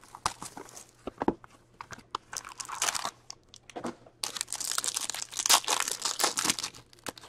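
Plastic shrink-wrap being pulled off a hockey card box, then a card pack wrapper crinkling and tearing open. A run of sharp crackles and rips that gets densest and loudest in the last three seconds.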